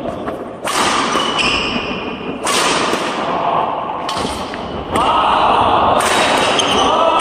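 Badminton rally: rackets striking the shuttlecock several times, with sneakers squeaking on the wooden court floor near the end.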